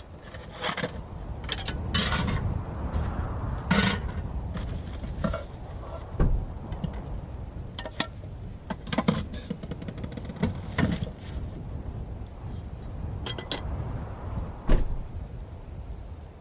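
Pots and a pan being handled, giving irregular clinks, clicks and knocks, with one louder knock near the end, over a steady low rumble.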